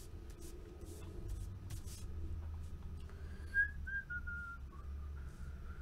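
A person whistling a few soft notes, starting about halfway through, the pitch stepping down and back up. Light clicks and taps of handling run underneath.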